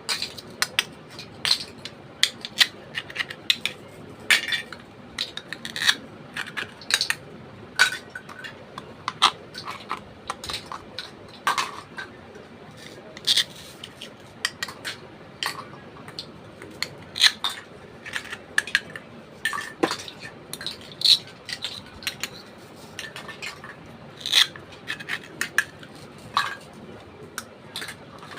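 Miniature plastic toy kitchen pieces being handled, clicking and clattering together in many irregular light taps.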